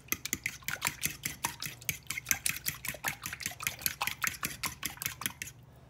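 Metal fork stirring a runny mix of butter, buttermilk and eggs in a mixing bowl: rapid clicking strokes of the fork against the bowl, several a second, stopping shortly before the end.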